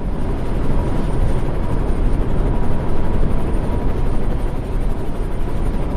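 Helicopter cabin interior noise: a steady, dense rumble of engine and rotor heard from inside the cabin, with a faint steady whine above it, fading in at the start and then holding level.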